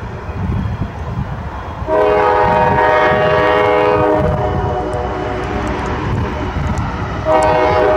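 Norfolk Southern freight locomotive's air horn sounding a chord: one long blast starting about two seconds in and fading, then a second blast beginning near the end, over a steady low rumble.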